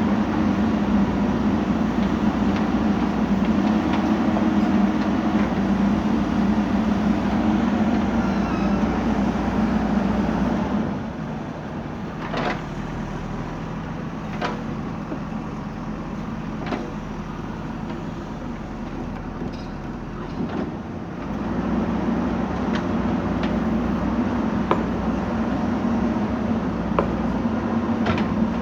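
JCB 3DX backhoe loader's diesel engine running under load, easing to a lower, quieter run for about ten seconds in the middle before picking up again. A few sharp metallic knocks sound during the quieter stretch.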